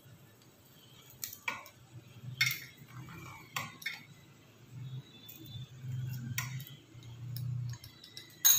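Pizza-cutter wheel clicking and scraping against a steel plate as it cuts dried mango leather into squares: a series of sharp metallic clicks, the loudest near the end.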